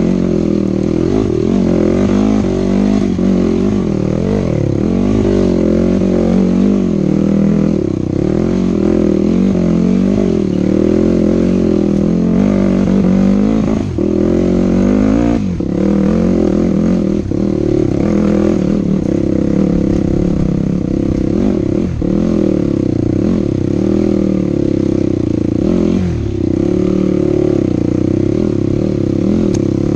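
Dirt bike engine revving up and down with constant throttle changes while riding a rough trail, with a few brief throttle-offs.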